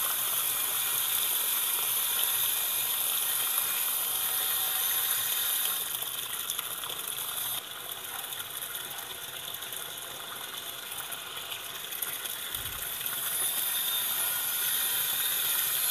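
Water pouring from the inlet of a Sanyo top-loading washing machine into its empty drum as the machine fills: a steady splashing hiss, a little quieter for a few seconds midway.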